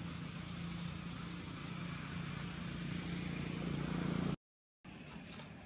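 A motor engine running steadily, a low even hum under a hiss of noise, growing a little louder before the sound cuts out abruptly a little over four seconds in. After a short gap, quieter outdoor sound returns with a few faint high chirps.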